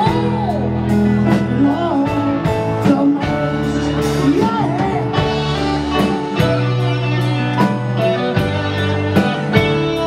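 Live blues-rock band playing: electric guitars and bass guitar over a steady drum-kit beat, with a male voice singing over it.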